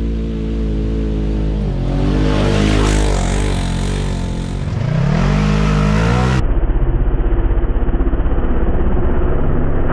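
Side-by-side UTV engine revving, its pitch rising and falling. About six seconds in the sound cuts abruptly to a steadier engine drone with a fast, even pulsing throb.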